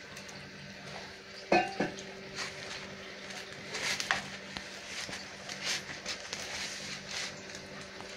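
A hand mixing chapati dough of wheat flour moistened with milk and water in a plastic bowl: soft, wet squishing and rustling as the shaggy dough is pressed and turned. Two sharp knocks against the bowl about a second and a half in are the loudest sounds.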